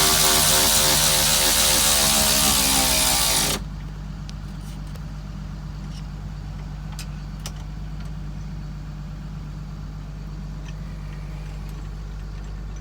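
A power tool runs with a loud hiss and a whine that slowly drops in pitch, then cuts off sharply about three and a half seconds in. After that, a steady low engine idle hum continues, with a few light clicks.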